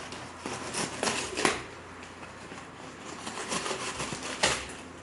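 Packaging being handled and opened by hand: a series of short rustles and scrapes, the loudest about four and a half seconds in.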